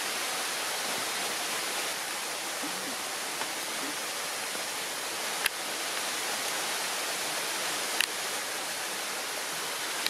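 Steady, even hiss with no calls in it, broken by two brief sharp clicks about five and a half and eight seconds in.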